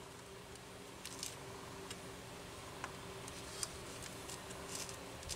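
Faint scattered clicks and light taps, a few over several seconds, as a Homelite 330 chainsaw's tank and handle assembly is worked into place by hand, over a steady low hum.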